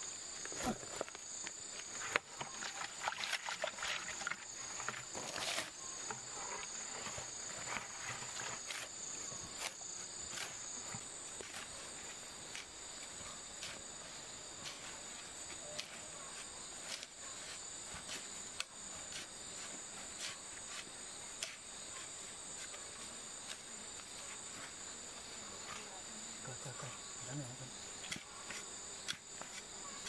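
Steady high-pitched chorus of insects droning on without a break. Scattered clicks and knocks sound over it, most of them in the first few seconds.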